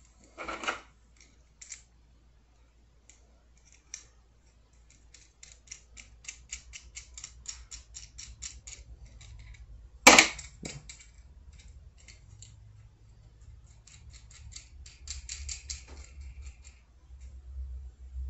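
Small plastic clicks and ticks from handling a Tech Deck fingerboard fitted with Hot Wheels wheels, coming in quick runs of about six a second, with one loud sharp knock about ten seconds in.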